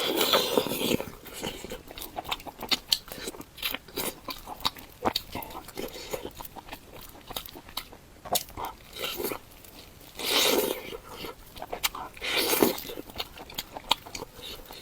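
Close-miked eating of spicy mala bullfrog: biting and chewing with many small crunching clicks, and a few louder bursts at the start and twice more past the middle.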